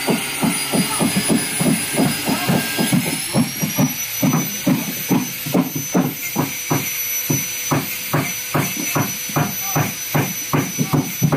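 An angle grinder cutting into the boat's hull, a thin high whine that steps up in pitch about three seconds in. Under it, and louder, runs a fast, even run of low thuds, about three or four a second.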